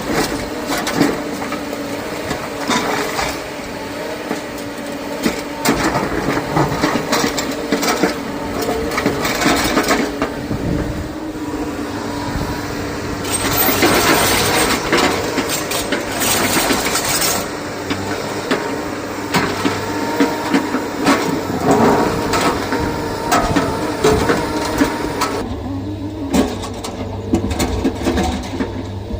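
SANY excavator's diesel engine running under load, with stone scraping and clattering against steel. The clatter swells into a dense rush for a few seconds midway. Near the end it thins out, leaving a low steady engine hum.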